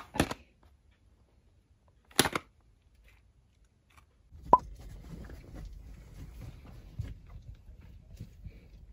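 A couple of short handling noises as a small cardboard cosmetics box is turned in the hand, then quiet. About four seconds in comes a sharp click, the loudest sound, with a brief ring, followed by a low steady rumble inside a parked car.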